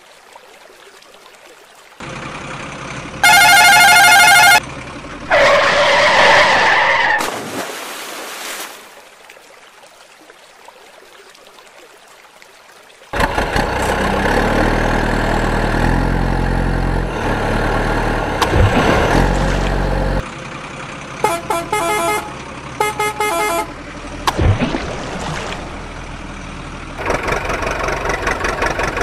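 Loud truck horn blasts a few seconds in, then a truck engine running steadily from about halfway, broken by a string of short horn toots, with the engine starting up again near the end.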